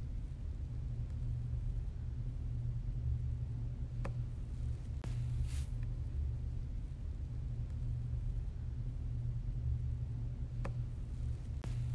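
Steady low hum of the recording's background noise, with a few faint clicks and a soft hiss about halfway through.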